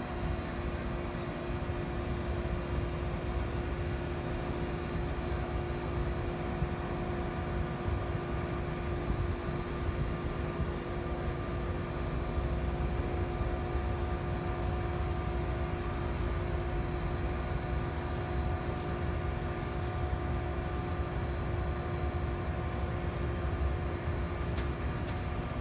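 Steady hum of a crane's engine running as it lowers a cannon on its carriage by hook and slings, a low rumble with a few steady tones over it.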